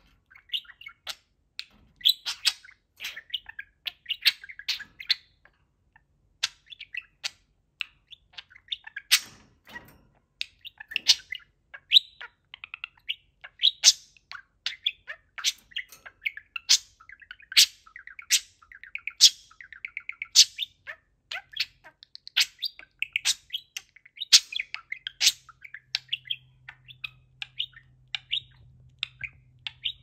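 Budgerigar warbling and chattering at its reflection in a toy mirror, a rapid unbroken stream of short chirps, squeaks and clicks. There are two louder knocks about nine and eleven seconds in.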